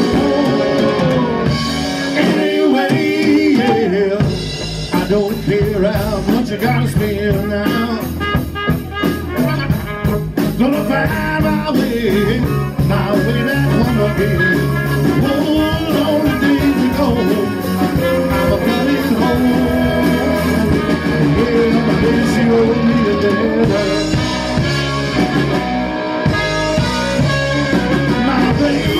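Live band playing a rock song: trumpet over electric guitar, bass guitar and drum kit, with a singing voice.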